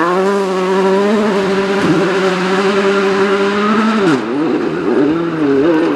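Volkswagen Polo R WRC rally car's 1.6-litre turbocharged four-cylinder engine held at high, steady revs as the car drives away. Near the end the revs drop and climb again twice.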